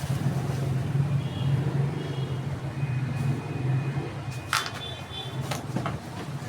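Steady low machine hum, with two short sharp crackles of plastic bubble wrap being handled about two-thirds of the way in.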